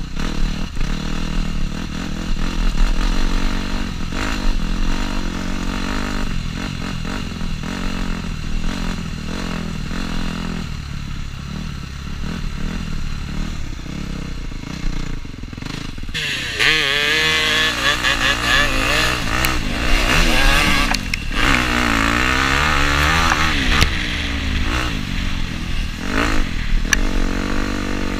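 Dirt bike engine revving up and down as it is ridden, the pitch rising and falling with the throttle and gear changes. About halfway through it gets louder and higher as the bike is pushed harder.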